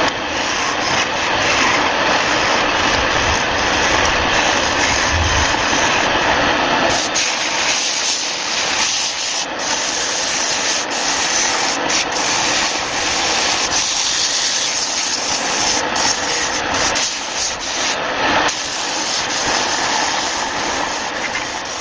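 Wood being sanded: a steady, rough rubbing noise that shifts in character about seven seconds in and again near the end.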